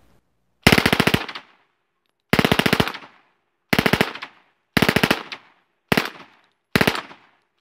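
Soviet PPSh-41 submachine gun firing 7.62x25mm Tokarev on full auto at its very fast cyclic rate of about 900 rounds a minute: six short bursts about a second apart, the first the longest, each trailing off in echo.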